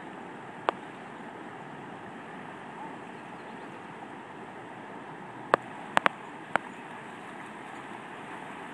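Steady rush of the Clark Fork River running high in spring flood, with five sharp clicks: one about a second in and a quick cluster of four a little past the middle.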